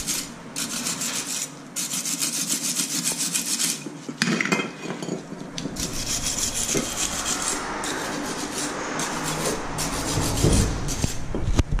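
Hand wire brush scrubbing a steel brake caliper bracket clean of rust and grime, in quick back-and-forth strokes in spells separated by short pauses. The scrubbing stops near the end.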